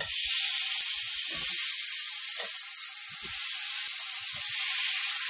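Pineapple spears sizzling steadily in a hot ridged cast-iron grill pan as they are laid in with metal tongs, with a few soft knocks of tongs and fruit against the pan.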